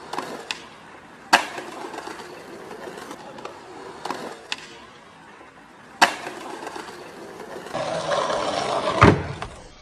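Skateboard wheels rolling on concrete, with several sharp clacks of the board. A louder, rougher rolling stretch comes near the end and closes with a heavy clack.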